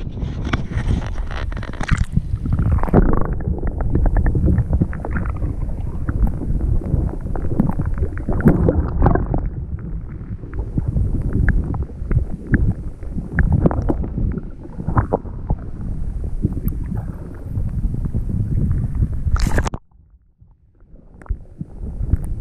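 Splashing as the action camera goes under the sea, then muffled underwater rumbling and knocking through its waterproof housing, with small clicks. About twenty seconds in there is a sharp burst, then the noise drops almost to silence for a couple of seconds before picking up again.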